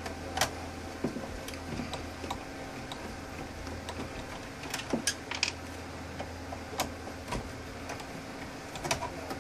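Screws being undone from the back of a desktop computer's power supply: scattered sharp clicks and light metallic taps at irregular intervals, over a steady low hum.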